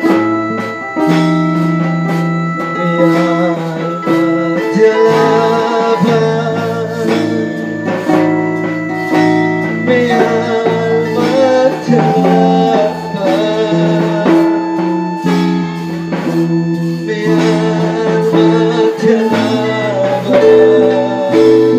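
Live worship band playing, with keyboard and drum kit keeping a steady beat under a singing voice that holds long notes.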